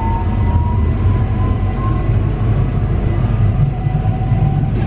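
Newag Impuls 2 electric multiple unit running, heard from inside the passenger cabin: a steady low rumble with an electric traction-motor whine that keeps rising in pitch as the train picks up speed.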